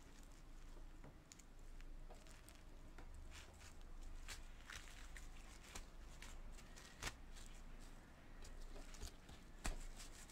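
Hands pulling apart and handling flaky layered msemen flatbread: faint soft crackling and tearing of the crisp layers, with a couple of sharper clicks in the second half.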